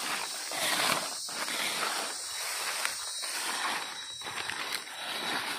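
Dry fallen leaves rustling and crunching in a run of uneven scrapes as a blade digs through the leaf litter and the forager shifts about.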